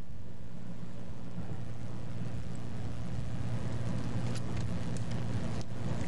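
A ship's engine running with a steady low drone, a few faint clicks about four to six seconds in.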